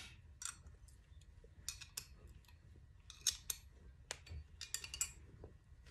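Small hand tool tightening the bolts on an old snow machine's steel brake disc: faint, irregular metallic clicks and light scrapes.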